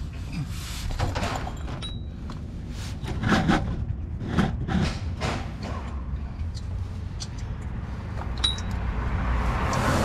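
Several short scrapes and knocks from hand work under a car, over a steady low rumble, while used engine oil drains in a thin stream into a drain pan.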